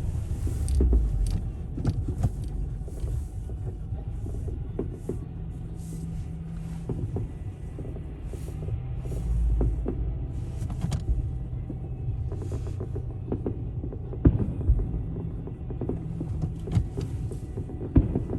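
Steady low road and engine rumble inside a moving car, with scattered sharp pops and bangs of firecrackers and fireworks going off outside. The loudest bangs come about fourteen seconds in and again near the end.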